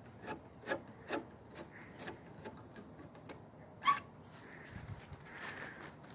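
A series of light clicks, about two a second, then one sharper, louder click a little before four seconds in, followed by a brief rustle.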